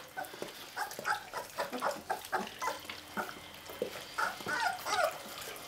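Young puppies squeaking and whimpering in short, high, falling squeaks, mostly in the second half, among wet lapping and smacking at a dish of puppy milk.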